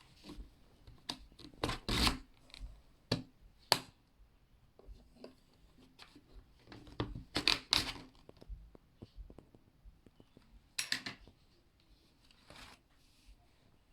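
Intermittent handling noises: short rustles, scrapes and taps of things being moved about by hand. They come in clusters, loudest about two seconds in, around seven and a half seconds and near eleven seconds.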